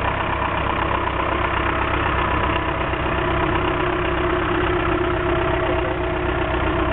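Off-road Jeep's engine running steadily at low revs while it crawls slowly through a dug trench, with a steady hum that holds the same pitch throughout.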